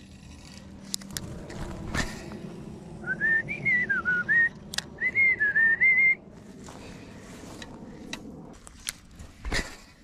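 A person whistling a short tune in two phrases, the pitch wavering up and down, starting about three seconds in and lasting about three seconds. A few sharp clicks sound around it.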